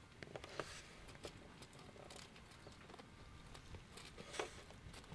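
Faint, scattered clicks and rustles of a horse and its handler walking on grass, the loudest about four seconds in.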